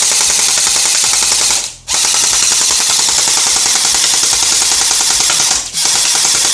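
Electric M4-style gel blaster firing long full-auto bursts of tracer gel balls: a rapid, steady mechanical rattle. It breaks off twice, briefly, about two seconds in and near the end.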